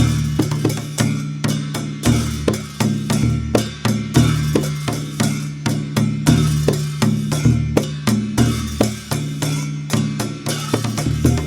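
Dhime, the Newar double-headed drum, played in a fast, continuous rhythm, with deep ringing strokes and sharp, bright strikes between them.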